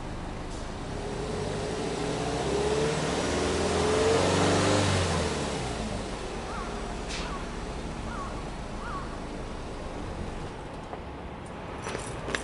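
Subaru Impreza hatchback S-GT's turbocharged flat-four boxer engine at the tailpipe, idling and then given one free rev that climbs for about three seconds and drops back to idle.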